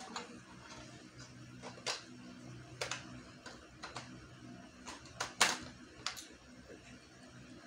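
Hard plastic parts of a toy foam-dart minigun blaster clicking and knocking together as a barrel cylinder is fitted onto it: separate sharp clicks about once a second, the loudest about five and a half seconds in. A faint steady low hum runs underneath.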